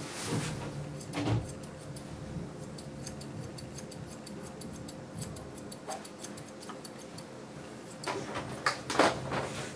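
Steel grooming shears snipping repeatedly as they trim a dog's coat, a run of quick crisp clicks. There are a few louder bumps, one about a second in and several near the end.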